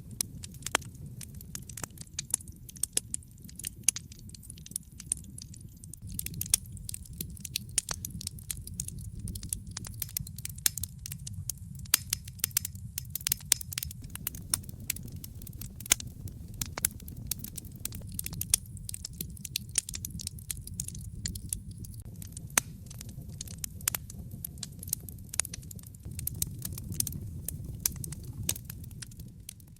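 Wood fire crackling: irregular sharp pops and snaps, several a second, over a steady low rumble of the burning logs.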